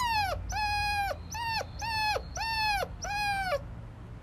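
A puppy giving six short, high-pitched, howl-like cries in a row, each held on one note and then dropping in pitch at the end.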